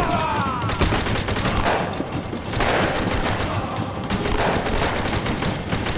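A dense barrage of gunfire: many shots from several guns, fired in quick succession and overlapping.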